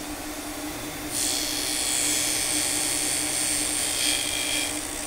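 Tool and cutter grinder's spindle running with a steady hum. About a second in, the grinding wheel meets the face of an end mill tooth, giving a high, hissing grind that lasts about four seconds and stops just before the end.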